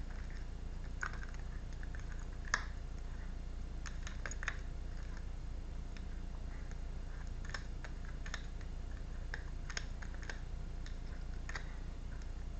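Light, scattered clicks and taps of tarot cards being handled and set down, about ten of them spaced unevenly, over a steady low hum.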